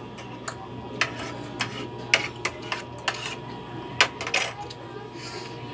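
Metal spoons and forks clinking and scraping against dinner plates while people eat, in short irregular clicks about one or two a second, over a steady low hum.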